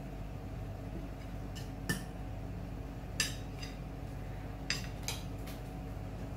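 A metal fork clinking against ceramic plates, four light clinks, as a floured fish fillet is dipped in beaten egg, over a steady low hum.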